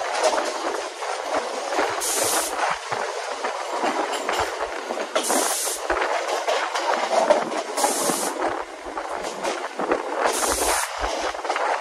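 Mumbai suburban electric local train running at speed, heard from its open doorway: a steady rumble and rattle of wheels on the rails, with a high hiss that comes and goes every two to three seconds.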